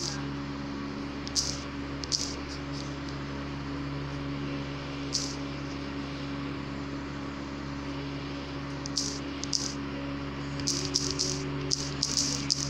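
Light clicks of typing on a phone's touchscreen keyboard: a few scattered clicks, then a quick run of them near the end. A steady low electrical hum runs under them.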